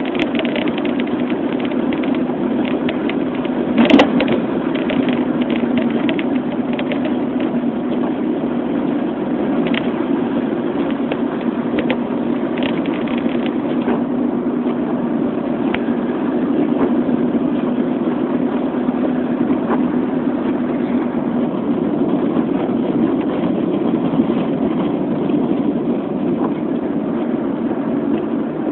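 Car driving, heard from inside the cabin: a steady engine and road drone. Scattered light ticks run through it, mostly in the first half, and there is one sharp click about four seconds in.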